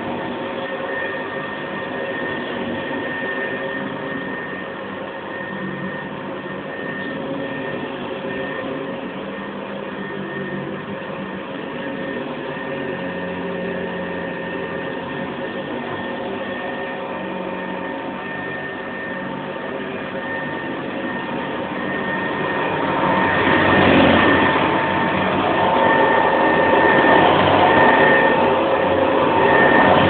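Hoover Convertible model 707 upright vacuum cleaner running over shag carpet: a steady motor hum with a whine. Near the end it gets louder and rises and falls.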